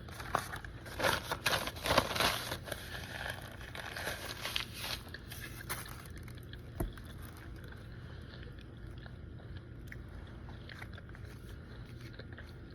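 Close-up eating of a folded slice of vegan pizza: crackly bites and chewing, busiest in the first five seconds, then quieter chewing with one sharp knock about seven seconds in.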